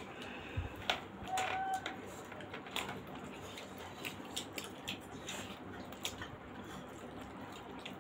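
Chewing and wet mouth sounds of people eating steamed momos, with scattered small clicks and squishes of soft food and fingers in a sauce bowl, and a brief hum about a second and a half in.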